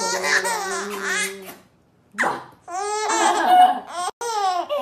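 A baby laughing hard, high-pitched laughs that slide down in pitch, in two long bouts broken by a pause of about a second near the middle.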